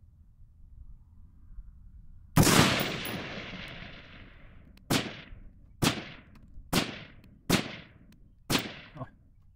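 AR-15 rifle firing six shots: one loud crack with a long echoing tail, then after a pause of about two seconds, five more shots about a second apart, each trailing a shorter echo.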